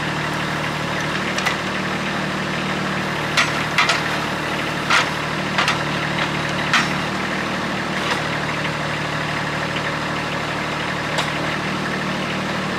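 Compact tractor's diesel engine running steadily, powering the hydraulics of a timber trailer crane that is loading logs, with about eight short sharp knocks and clunks scattered through as the grapple handles the wood.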